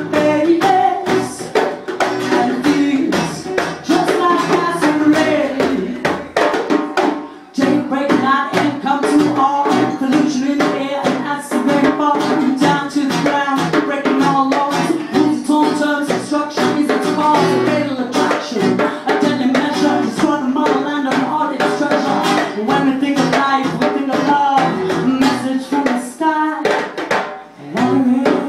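Live acoustic band playing: an acoustic guitar strummed over two djembes drummed by hand in a steady rhythm. The music dips briefly about seven seconds in and again near the end.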